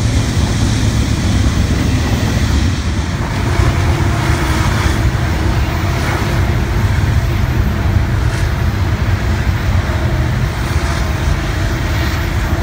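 Double-stack intermodal container cars of a freight train rolling past at close range: a steady, loud rumble of steel wheels on the rails, with a few faint clicks.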